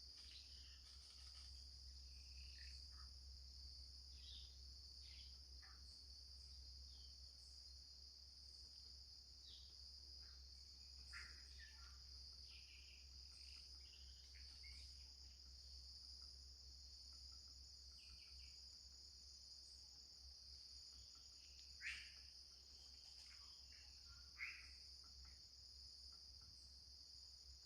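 Tropical forest ambience: a steady, high insect chorus of crickets with scattered short bird chirps, two sharper chirps standing out near the end, over a faint low rumble.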